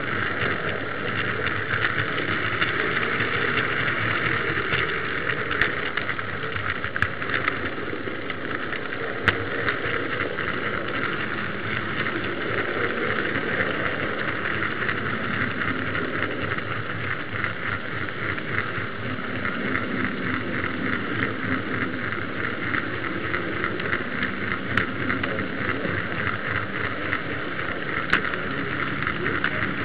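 An H0-scale model tram running along its track, heard from a camera riding on board: a steady whirr of its small electric motor, gears and wheels on the rails, with a few sharp clicks along the way.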